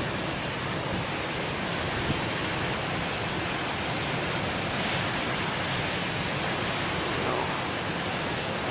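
Big waves crashing and surf washing up the beach in a steady rush of water.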